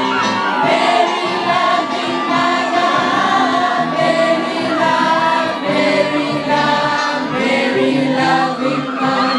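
A large crowd singing a hymn together, many voices in a choir-like chorus.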